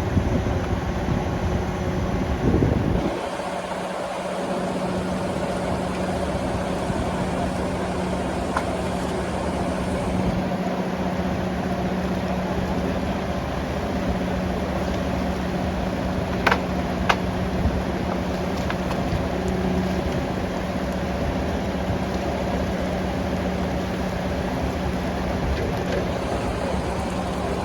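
Engine idling steadily with a low, even hum. A louder low rumble stops abruptly about three seconds in, and two sharp clicks come close together a little past the middle.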